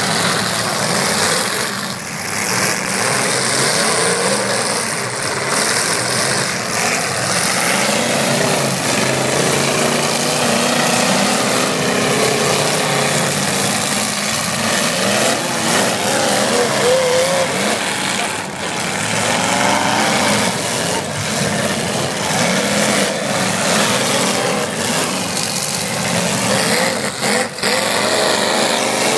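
Several 8-cylinder demolition-derby cars' engines running and revving together, with pitch rising and falling around the middle. A few sharp bangs come through as the cars ram each other.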